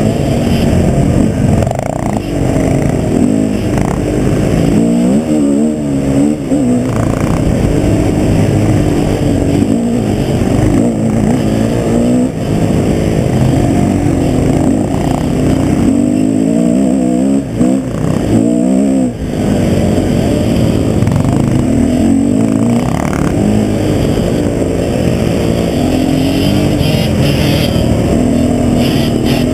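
Husqvarna TE 250 enduro motorcycle engine heard close up from the bike, revving up and down continuously as it is ridden over a rough dirt trail, with brief throttle-offs a few times.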